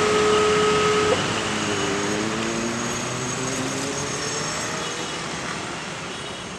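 A loud, steady railway warning tone on one note that cuts off sharply about a second in. Then the mixed running of waiting motorcycles and cars, with several engine notes rising in pitch.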